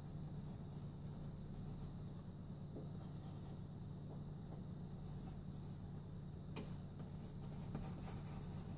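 Graphite pencil scratching on paper in clusters of short, quick strokes as a drawing is sketched, with one sharper tick about two-thirds of the way through. A steady low hum sits underneath.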